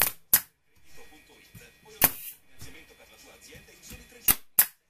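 Parkside PDT 40 D3 pneumatic nail and staple gun firing brads into a wooden strip: five sharp shots. Two come in quick succession at the start, one about two seconds in, and two close together near the end.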